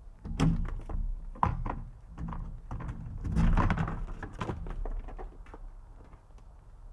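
Badgers scuffling at a bin: an irregular run of thumps and knocks, the loudest flurry about three and a half seconds in, then quieter.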